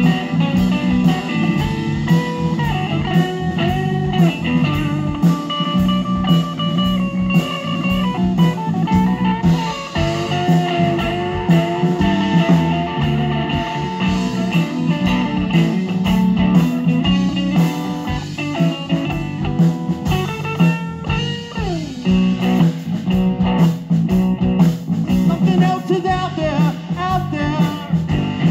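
Blues-rock music: a lead guitar plays long, bending notes over a band with a steady beat.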